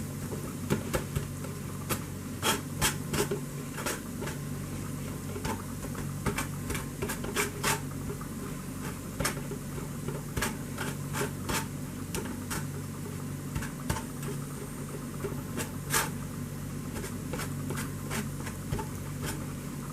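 Spoon pressing and scraping cooked ground beef in a strainer to squeeze out the grease: irregular clicks and scrapes of the utensil against the strainer, over a steady low hum.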